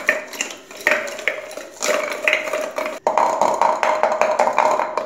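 Metal stirrer scraping and clinking round the inside of a small stainless steel pot as yogurt and sugar are stirred, in repeated strokes over a steady ring from the steel.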